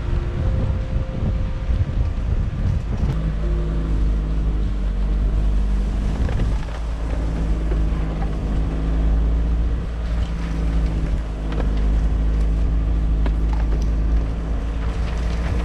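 VW California camper van driving: a steady low engine rumble with a few steady hum tones and wind noise on the microphone, plus scattered faint knocks.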